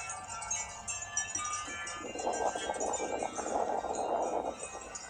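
Many wind chimes ringing in a thick cluster of overlapping tones, from two wind chime recordings playing at once. About two seconds in, a rushing noise swells for a couple of seconds as a big gust of wind hits, then dies down.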